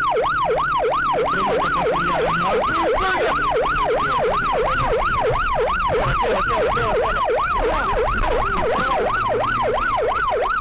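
Electronic siren in a fast yelp, its pitch sweeping up and down about three times a second, loud and steady throughout, over a low rumble.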